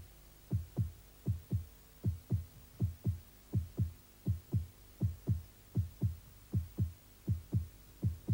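A heartbeat: steady double thumps, lub-dub, about 80 beats a minute, over a faint steady hum.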